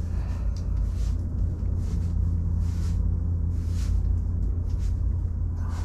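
Steady low rumble with a few faint rustles and clicks.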